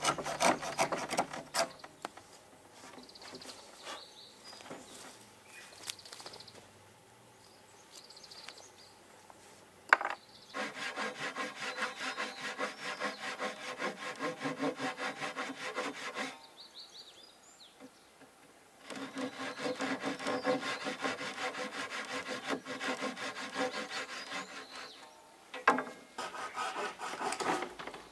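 Hand saw cutting wood in runs of quick, even back-and-forth strokes, with pauses between the runs. A sharp knock sounds about ten seconds in and again near the end.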